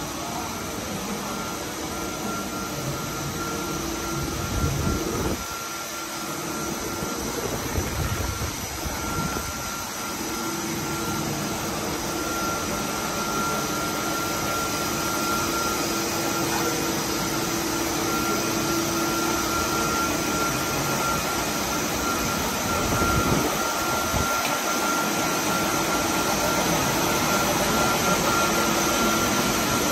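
Steady running noise of an HDPE plastic profile extrusion line: motors and pumps humming with a steady high whine over a broad hiss, growing slightly louder toward the end, with a few brief low rumbles.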